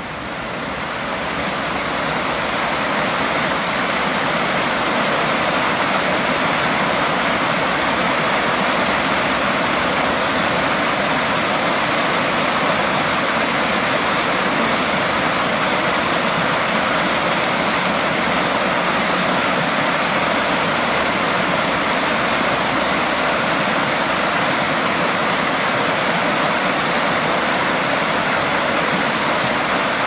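A small stream rushing in a cascade of white water over rocks. It is a loud, steady rush of water that swells up over the first two seconds.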